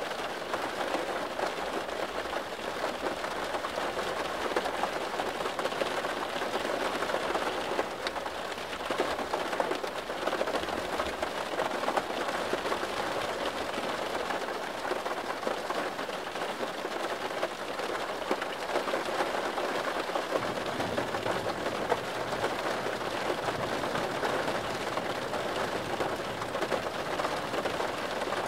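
Steady rain falling: a dense, even hiss of many small drops hitting a surface.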